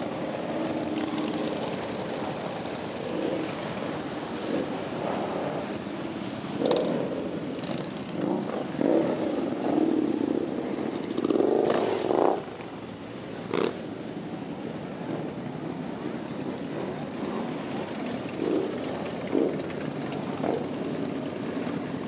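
A long column of motorcycles, many of them cruisers, passing by at low speed with their engines running together in a steady din. Riders rev up in several bursts, the loudest a little past the middle.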